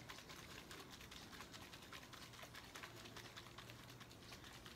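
Faint, fast, irregular clicking and pattering of a small plastic bottle of water and slime powder being shaken by hand to mix the slime.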